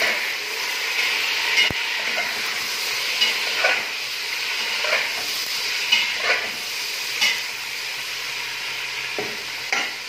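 Chicken pieces sizzling in hot oil with fried onions in a stainless steel pot. A spoon scrapes and knocks against the pot every second or so as they are stirred.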